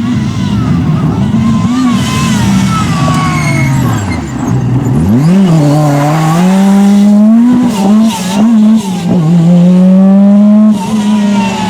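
Lancia Delta S4 Group B rally car's turbocharged and supercharged four-cylinder engine being driven hard. The revs fall away about four seconds in, then climb sharply and hold high with a couple of brief dips as it changes gear, dropping again near the end.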